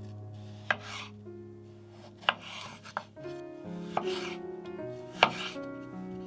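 Knife cutting on a cutting board: five sharp knocks at uneven intervals, several followed by a short scraping slice, over soft background music.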